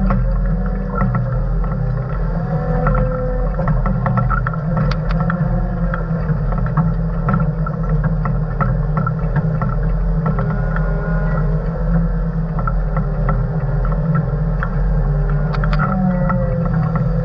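Diesel engine of a motor grader running steadily under load, heard from inside the cab, with a whine that slides up and down in pitch over it. Scattered ticks and scrapes come from the blade working through dry, sandy dirt.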